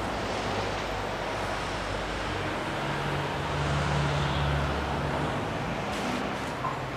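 Steady road traffic noise, with a vehicle engine's low drone growing louder about three seconds in and easing off about two seconds later.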